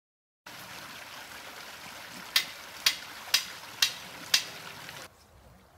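Sledgehammer driving a metal post: five sharp, ringing strikes about two a second, over the steady rush of stream water. Near the end the sound cuts to a much quieter, fainter water background.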